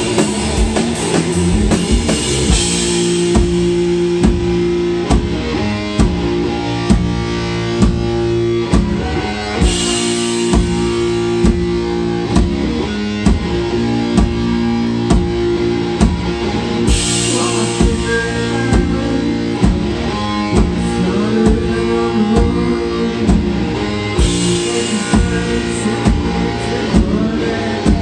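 A live rock band playing: guitar chords over a steady drum-kit beat, with cymbal crashes several times.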